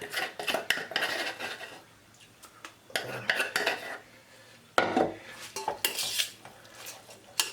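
A spoon scraping and clinking against a dish as shredded chicken is stirred together with chutney, in irregular bursts with short pauses and a sharp knock about five seconds in.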